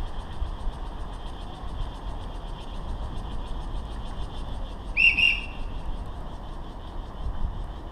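Two short, high whistle blasts, the first starting with a slight upward slide, about five seconds in. They sound over a steady high buzzing hiss and a low wind rumble.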